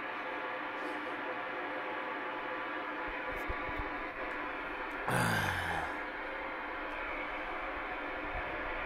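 Galaxy CB radio receiver playing open-band static and hiss through its speaker, with no one transmitting. About five seconds in, a brief louder burst with a falling tone breaks through.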